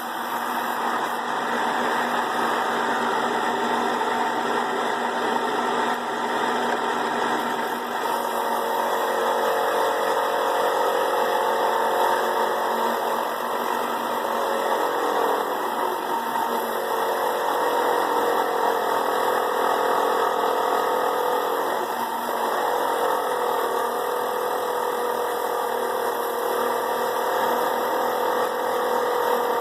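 Rock Rascal Model T 6-inch trim saw running steadily on its belt-driven juicer motor while slicing a piece of rhodonite. About eight seconds in, a wavering whine joins the steady machine noise as the blade works through the stone, dipping in pitch briefly twice.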